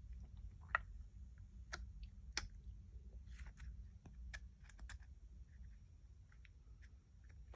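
Light, irregular plastic clicks and taps as a small clipper motor is wiggled and pressed down into the clipper's plastic housing, over a faint low hum.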